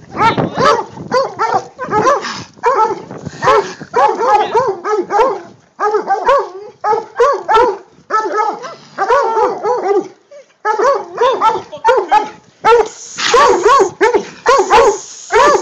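Treeing Walker and bluetick coonhounds baying at a raccoon in a wire live trap. Their loud, quick barks come several a second, with a few short breaks.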